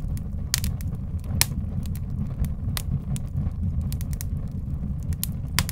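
Fire crackling: scattered sharp pops over a steady low rumble.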